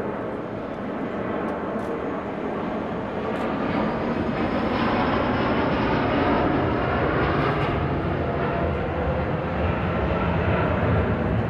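Jet engine noise from an Airbus A330neo's two Rolls-Royce Trent 7000 turbofans as the airliner climbs and banks past: a steady rushing roar that grows louder about four seconds in.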